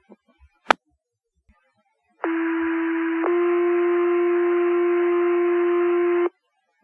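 Two-tone sequential pager alert tones over a fire dispatch radio channel: one steady tone for about a second, then a different steady tone held for about three seconds, cut off abruptly. A short radio click comes shortly before the tones.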